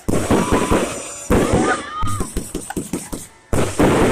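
Fireworks going off uncontrolled as a stock of fireworks burns: rapid, dense crackling bangs in three stretches that each start suddenly.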